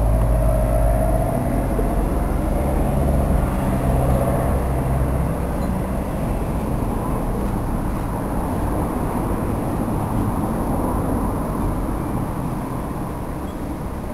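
A vehicle engine running with a steady low hum that fades after about six seconds, leaving a general rumble.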